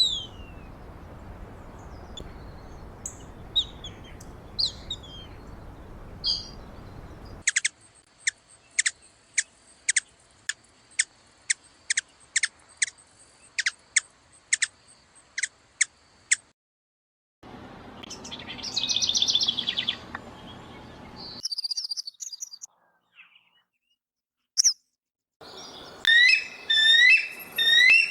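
Wild birds calling in several short clips one after another: scattered chirps over a steady hiss, then a regular series of sharp high notes about two a second, a short trill, and near the end rapid repeated rising whistles.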